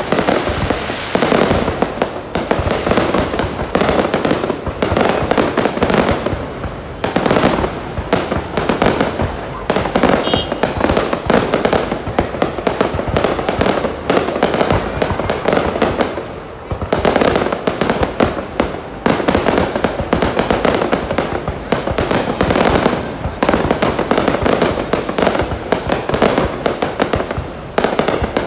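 Aerial fireworks display: a dense, continuous barrage of bangs and crackles from bursting shells, going on almost without a pause.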